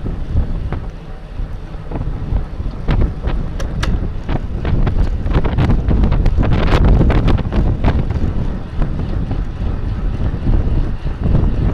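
Heavy wind buffeting on a bike-mounted camera's microphone while a road bike is ridden fast in a racing pack. A run of sharp clicks and rattles comes in the middle.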